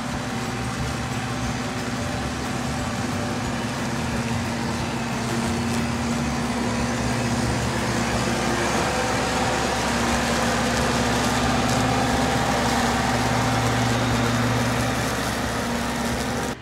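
Compact ride-on tractor running with its mower deck and collector fan, vacuuming up fallen leaves: a steady engine hum under a broad rushing noise. It grows gradually louder as the machine draws near, loudest in the last few seconds.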